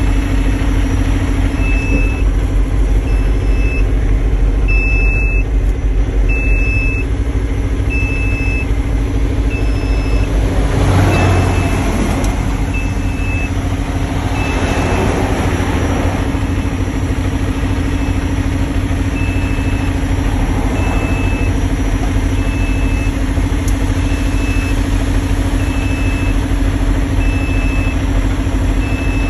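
Heavy diesel dump truck engine running with a steady low drone, heard from the cab, while a backup alarm beeps about once a second. Two brief rushes of hiss rise and fade about eleven and fifteen seconds in.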